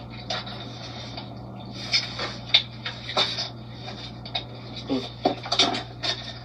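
Takeout food containers and wrappers being handled while eating: scattered crinkles, taps and scrapes over a steady low hum.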